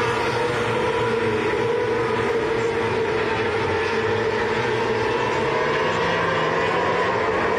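Winged sprint car lapping a dirt speedway oval at speed, its engine a loud, steady drone whose pitch swells only slightly.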